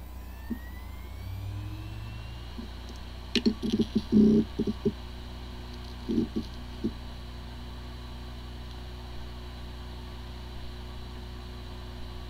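Hard disk drive with corrupted firmware powering up: a whine rises as the platters spin up over the first couple of seconds, a few clusters of soft clicks and knocks follow, then the drive spins steadily with a hum. It sounds like a healthy drive, although the computer cannot detect it.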